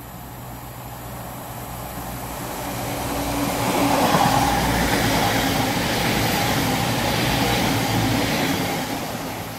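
CrossCountry Voyager diesel-electric multiple unit approaching and passing close by at speed: its underfloor diesel engines and wheels on the rails grow louder to a peak about four seconds in, stay loud as the carriages go by, then start to fade near the end.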